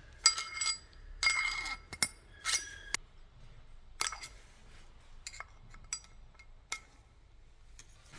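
Metal tools and parts clinking against each other: several sharp, ringing clinks in the first three seconds, then a few lighter taps.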